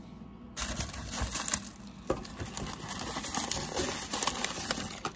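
Tissue paper crinkling and rustling as hands rummage in a cardboard gift box, starting about half a second in, with many small crackles.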